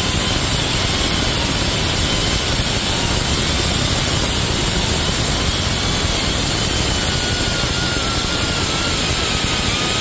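Right-angle die grinder with an abrasive disc grinding rust off a wheel hub's mounting face: a loud, steady rushing grind with a faint whine that wavers as the tool is pressed against the hub.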